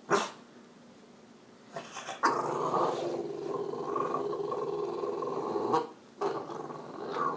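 French Bulldog growling and grumbling in long drawn-out vocalisations: a short sound just after the start, one long grumble of about three and a half seconds starting about two seconds in, then another after a brief pause near the end.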